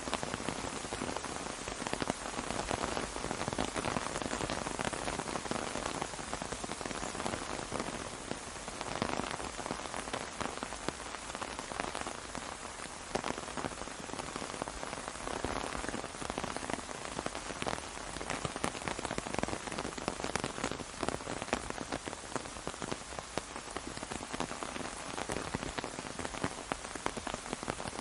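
Steady rain falling on an umbrella: a dense hiss of countless fine drop impacts that swells and eases a little without stopping.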